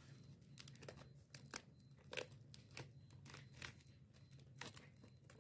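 Faint, irregular crinkling of plastic-wrapped wafer roll packets as they are handled and fitted into a cardboard box.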